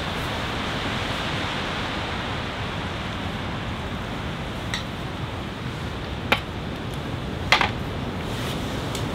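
A steady hiss of outdoor noise, with three short, sharp clicks or knocks on top. The loudest comes near the end, as a steel camping mug is set down on the ground.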